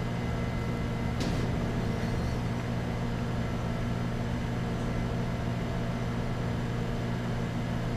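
Steady low electrical hum with several pitched layers, like mains hum from lab equipment, and one faint click about a second in.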